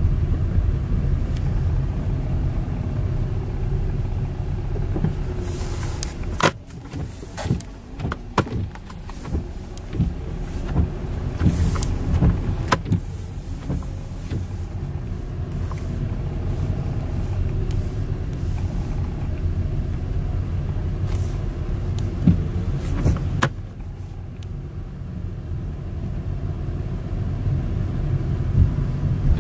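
Car driving, heard from inside the cabin: a steady low rumble of engine and road. Scattered knocks and rattles come thickest from about six to thirteen seconds in, and the rumble eases briefly about two-thirds of the way through.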